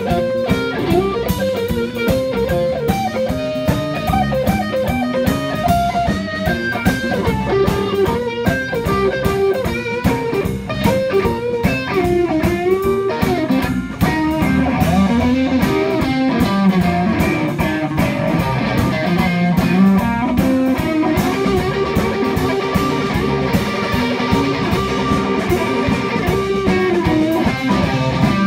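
Live blues band playing an instrumental passage: electric guitar lines that bend in pitch over bass guitar and a steady drum beat, picked up by a phone's microphone. About halfway through the band gets louder and fuller.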